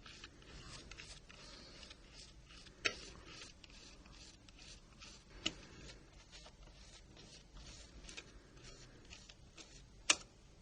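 Faint, irregular clicking and ticking of a small Torx Plus screwdriver working the screws out of a Nokia 1100 phone's housing, with three sharper clicks about three, five and a half and ten seconds in.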